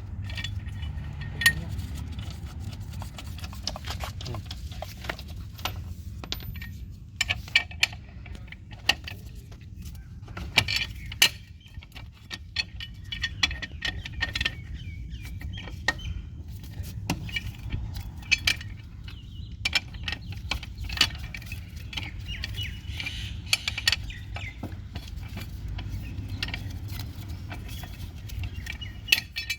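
Repeated metallic clicks and clinks of wheel nuts being spun off a van's front wheel by hand and handled, over a steady low rumble.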